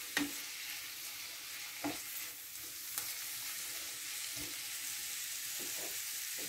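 Grated zucchini, onion and peppers sizzling in a frying pan, a steady hiss, while a wooden spatula stirs them with a few short knocks against the pan.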